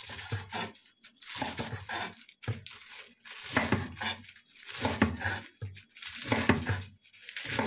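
Chef's knife slicing through fresh lettuce leaves on a wooden cutting board: crisp crunching cuts with the blade knocking on the board, in short bursts about once a second.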